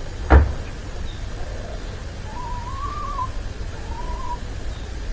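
Hens giving two soft wavering calls, the first about a second long and the second shorter, over a steady low rumble. A sharp knock sounds just after the start.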